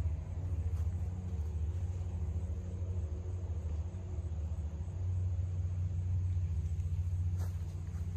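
Steady low rumble of wind buffeting the microphone, with one faint click about seven and a half seconds in.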